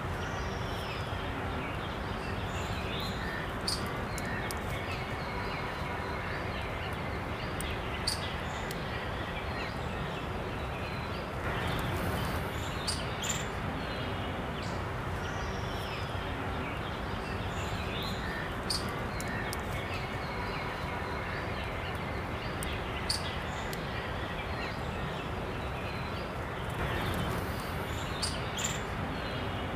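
Outdoor nature ambience: a steady hiss with scattered short bird chirps and clicks throughout.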